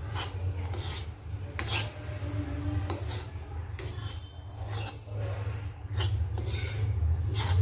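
Metal spatula scraping and stirring wheat and pearl-millet flour around an iron kadhai as it is dry-roasted, in repeated rasping strokes about once a second. A steady low hum runs underneath.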